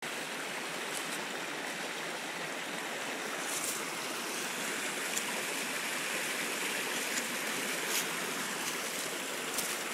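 Creek water flowing steadily: an even rushing hiss, with a few faint ticks.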